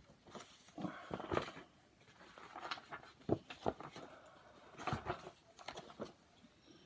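Paperback picture book being handled and its pages flipped: irregular rustling in several short clusters, with a few light taps.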